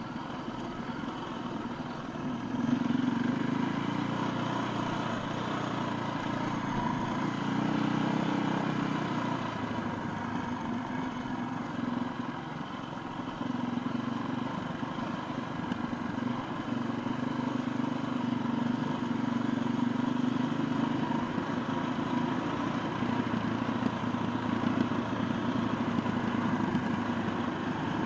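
Off-road enduro motorcycle engine running under varying throttle, its level swelling and easing. It gets louder about two and a half seconds in.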